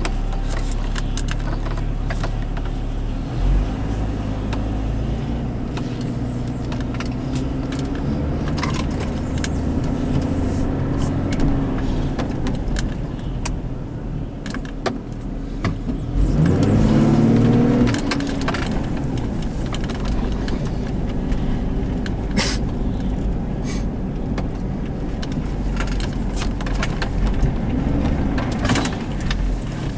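2002 Chevy TrailBlazer's inline-six engine and tyres heard from inside the cab while driving slowly, with the engine revving up and settling back about halfway through. Scattered light clicks and rattles sound in the cabin.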